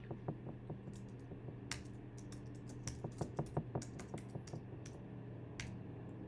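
Typing on a computer keyboard: a run of light key clicks at an uneven pace, with a few sharper clicks among them, as a line of text is entered.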